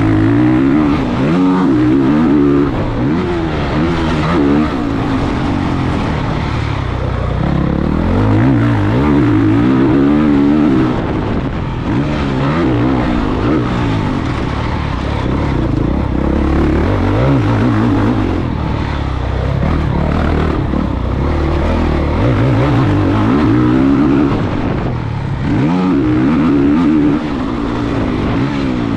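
Honda CRF450 four-stroke single-cylinder motocross bike ridden hard around a dirt track, its engine revving up and dropping back again and again.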